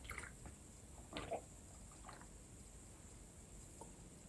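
Faint sipping and swallowing from a glass: a few soft mouth sounds in the first two seconds, otherwise near silence.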